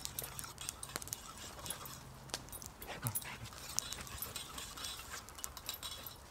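A metal spoon stirring and clinking against the inside of a metal camping mug: a run of light ticks and scrapes. A brief falling whine is heard about three seconds in.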